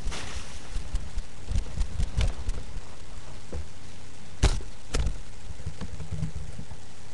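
Rustling and a few knocks and bumps from someone moving about close to a webcam microphone, over a steady hiss. The loudest is a sharp thump about four and a half seconds in, with a smaller knock about half a second later.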